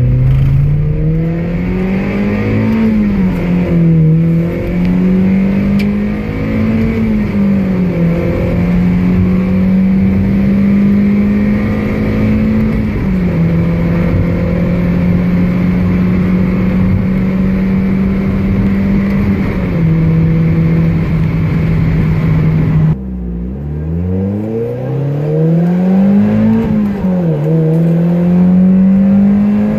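Mazda Miata NB four-cylinder through a full Roadster Sport 3 exhaust (Magnaflow cat and resonated midpipe), heard from inside the cabin. It pulls up through a few throttle changes, then cruises at a steady pitch at highway speed, with no drone or rasp. About two-thirds of the way through, it switches to the same car on factory midpipe, no cat and the RS3 muffler without resonator, revving up, shifting and revving up again.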